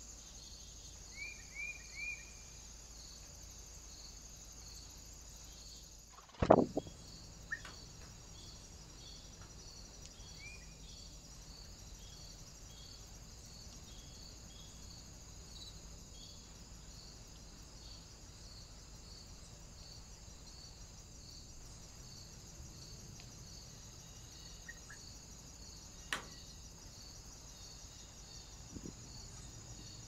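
Insects chirping: a steady, evenly pulsing high chirp over faint woodland ambience. A few short bird chirps come about a second in, a single loud thump about six seconds in, and a small click near the end.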